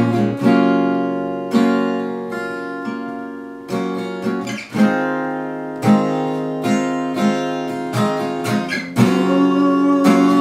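Acoustic guitar strummed in a mid-tempo song, chords struck and left to ring out between strokes.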